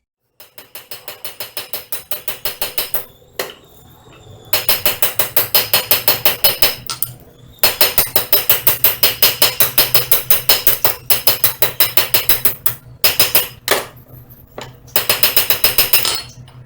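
Hand hammer striking hot mild steel bar on an anvil in rapid, even runs of blows, each with a metallic ring, to round off the corners of the bar. Four runs with short pauses between them; the first run starts light and builds.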